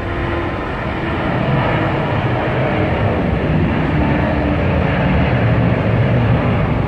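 Airbus A380 jet engines running, heard as a loud, steady rumble with a hiss above it that swells slightly over the seconds.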